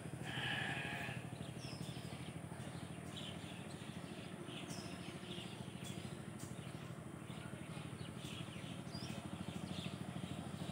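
A steady low mechanical hum with a fast even pulse, with a few short high bird chirps scattered over it.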